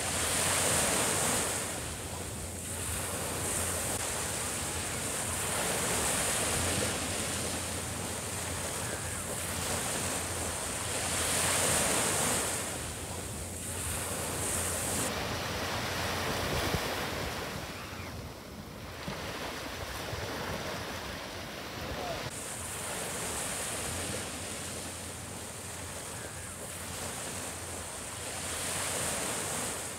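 Small waves breaking and washing up a sandy beach, the surf swelling every five or six seconds.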